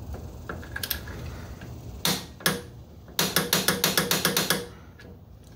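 Ratcheting torque wrench on a clutch bolt: two sharp clicks about half a second apart, then a fast run of ratchet pawl clicks, about eight a second for a second and a half, as the bolt is tightened to torque.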